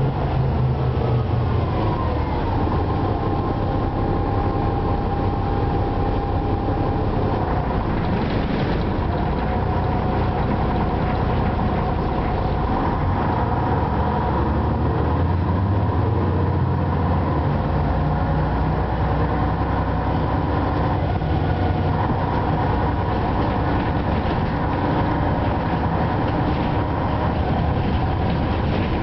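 Ikarus 260 city bus heard from inside the passenger cabin, its diesel engine and drivetrain running steadily on the move with road and body noise. The pitch falls over the first couple of seconds, then holds steady with a whine.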